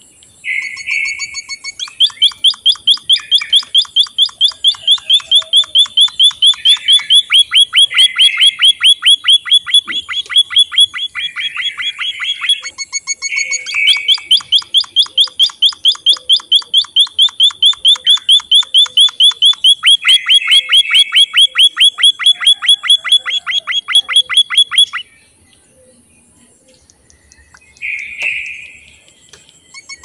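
White-headed munia chirping: long runs of fast, evenly repeated high notes, about six or seven a second, with softer buzzy phrases mixed in. The chirping stops about 25 seconds in, and one short call follows near the end.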